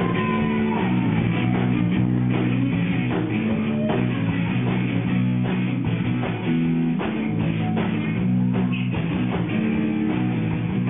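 Guitar-led music with bass, its chords changing every second or so.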